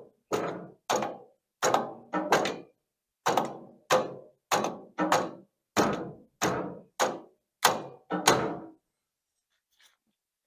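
Repeated sharp knocks, about seventeen at roughly two a second, on the tractor's throttle linkage, which is painted in solid and won't come loose; they then stop.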